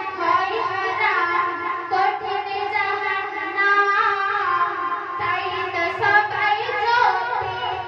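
A young woman's voice singing a Bengali Islamic gojol (devotional song) into a microphone, in long held notes that slide and bend in pitch.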